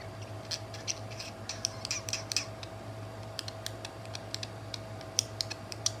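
Two budgerigars touching beaks: a run of quick, irregular soft clicks and ticks, with a few faint chirps in the first two seconds.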